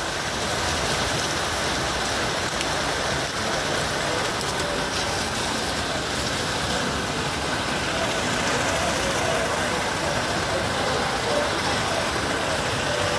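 Steady hiss of falling and splashing water in a swimming pool.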